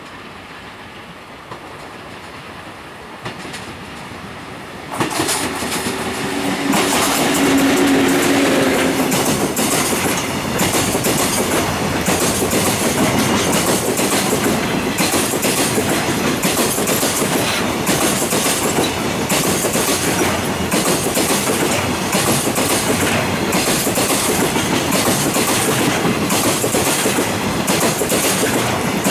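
An EF81 electric locomotive hauling a freight train approaches and passes close by about five seconds in, with a low hum as it goes past. A long string of container wagons follows, rolling by with a steady, rhythmic clatter of wheels over the rail joints.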